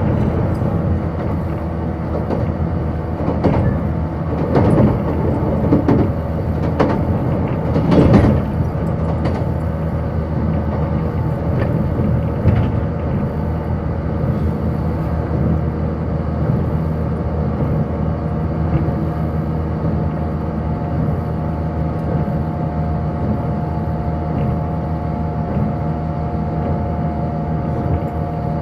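Running sound inside a 185-series electric train: a steady rumble of the wheels on the rails, with a cluster of sharp knocks and clatter over the first several seconds. A steady tone comes in over the second half.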